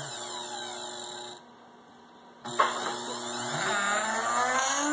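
Corded electric drill's motor whining as its speed is stepped by a reed-relay resistor speed controller. The whine falls in pitch and cuts out about a second and a half in. It comes back with a click about halfway through and rises again. The builder says the control is rough because the relays fail.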